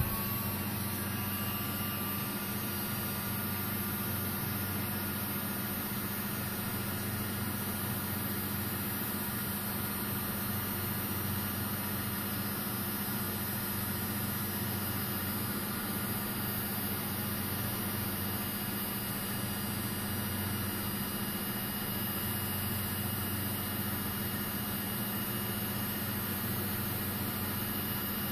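Electric heat gun running steadily: its fan motor gives an even whine over the rush of blown hot air.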